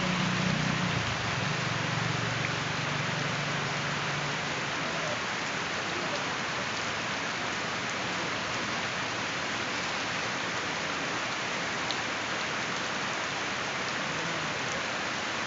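Steady rain falling, an even hiss of many drops with no let-up. A faint low hum underneath fades away in the first few seconds.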